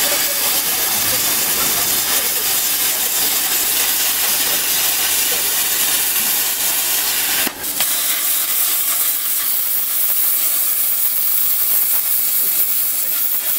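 Golden Elephant CUT-60 plasma cutter's torch cutting, a loud steady hiss of the arc and air jet, broken briefly about halfway through.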